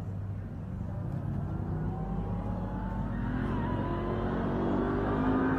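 Ram TRX's supercharged 6.2-litre V8 accelerating toward the listener, its engine note climbing steadily in pitch and growing louder.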